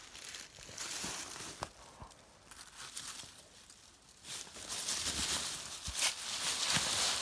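Dry leaf litter rustling and crunching under footsteps and a dead white-tailed deer being dragged by its leg across the forest floor, louder from about four seconds in.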